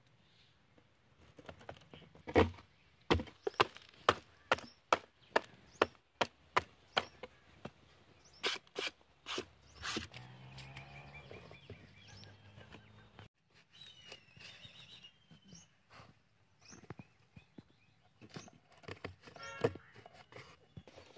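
A quick series of sharp knocks and taps, about two a second, as a cardboard shoe box is handled and set up on dirt ground. The knocks stop about halfway through, and softer, scattered handling clicks follow.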